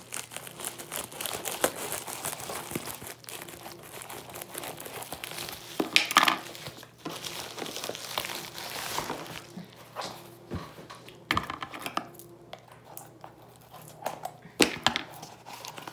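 Scissors cutting open a plastic poly mailer bag, then the plastic crinkling and rustling as the package inside is pulled out and handled, with louder crinkles about six seconds in and again near the end.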